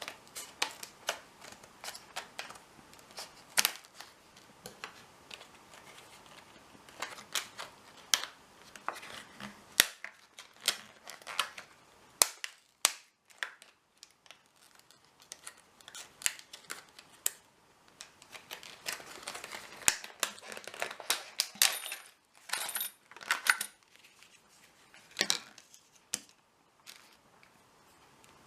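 Irregular sharp metallic clicks and clacks, some in quick runs, from handling a Master Lock 9140D padlock and its key.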